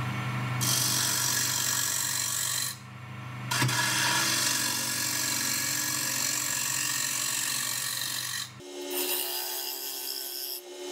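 Wood lathe running, with a spindle gouge side-cutting the inside of a spinning wooden bracelet blank: a steady motor hum under a hissing, scraping cut that stops briefly about 3 seconds in and then resumes. The hum shifts higher near the end while the cutting goes on.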